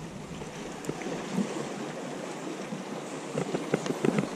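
Choppy water lapping with wind buffeting the microphone, and a quick run of short clicks and splashy ticks near the end.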